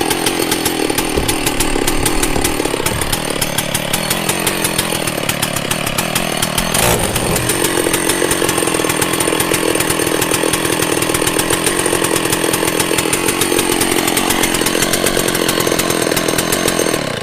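Two-stroke chainsaw engine running steadily for many seconds, its pitch rising and falling a little, then cutting off suddenly at the end. The chain is not turning on the bar, which is put down to lack of bar oil or long disuse.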